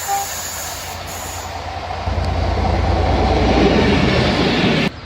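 A train running close by, a rumbling, noisy sound that grows louder from about two seconds in, with a brief short high note just after the start; it cuts off suddenly near the end.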